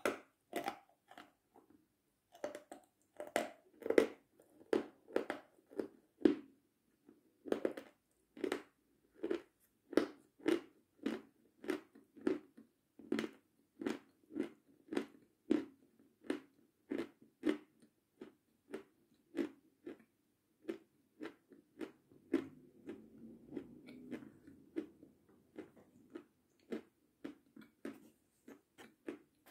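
Close-up chewing of edible chalk with the mouth closed: a steady run of crisp crunches, about one and a half a second, with a softer stretch of munching a little past the middle.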